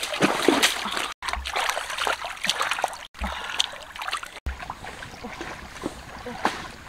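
Water splashing and sloshing as hands wade through and wash catfish in shallow river water, over a steady trickle of the stream. The sound cuts out for a split second three times.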